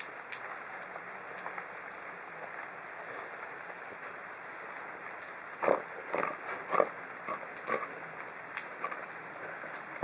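Samoyed dog eating from a plastic bowl over a steady hiss. From a little past halfway comes an irregular run of short crunching, smacking clicks as it chews and mouths the food.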